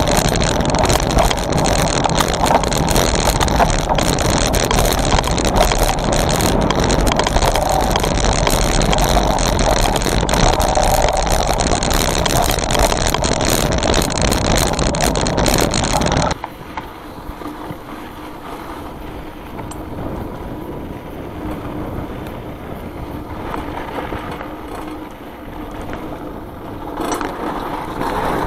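1992 Trek 820 rigid-fork mountain bike riding a dirt trail: Schwalbe Black Jack knobby tyres rolling over hard dirt, with the bike's mechanical rattle loud on the camera mount. About sixteen seconds in the sound drops abruptly to quieter rolling noise on gravel.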